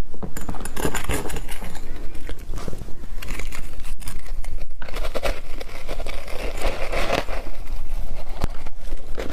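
Large ice chunks coated in matcha and milk powder being bitten and chewed close to a clip-on microphone: a dense, continuous run of loud cracks and crunches.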